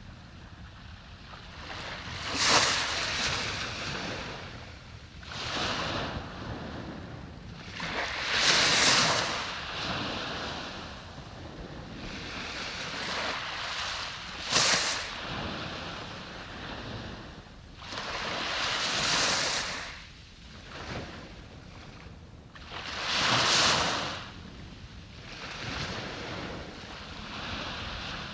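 Small waves breaking on a sandy beach, each one swelling into a hissing wash and falling away, one every three to five seconds.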